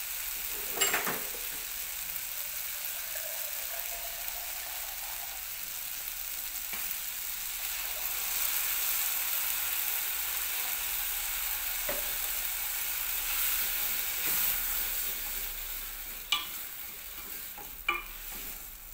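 Omena and tomatoes sizzling in a pan, with water poured in over the middle. Near the end a wooden spoon stirs the food, knocking sharply against the pan a couple of times.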